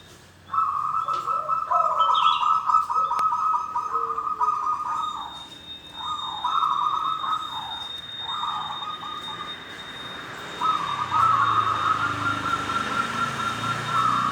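Local wild-type zebra dove (perkutut) singing in rolling, trilled coo phrases. A long phrase of about five seconds is followed by a few broken shorter ones, and another long phrase begins about two-thirds of the way in.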